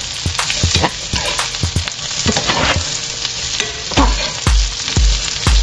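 Bell peppers and onion sizzling in a nonstick frying pan while a spatula stirs them, with quick clicks and scrapes of the spatula on the pan. From about four seconds in, low thumps come about twice a second.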